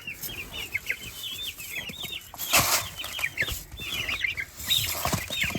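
A brood of young chicks peeping continuously, many short high chirps overlapping several to the second. A brief rustle cuts across about two and a half seconds in.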